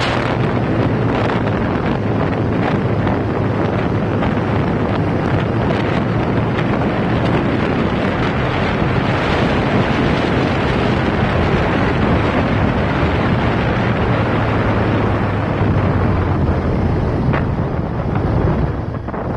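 Wind rushing over the microphone of a moving motorcycle, over the steady low drone of its engine; the wind eases briefly near the end as the bike slows.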